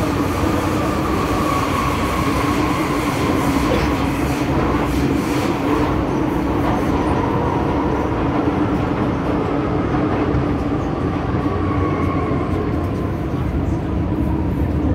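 Cabin noise of an MTR M-Train subway car running through a tunnel: steady rumble of wheels on rail with a constant motor whine and a few rail clicks. The whine dips slightly near the end as the train slows for the next station.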